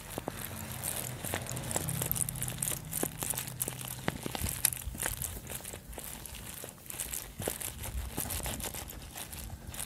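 Lambs and goat kids feeding in a pile of dry grass close to the microphone: irregular rustling, tearing and crunching of the stalks as they pull and chew, with dense crackles throughout.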